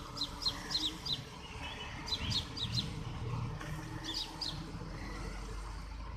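Repeated short, high bird chirps, each dropping in pitch, coming in quick runs of several, over a low steady rumble.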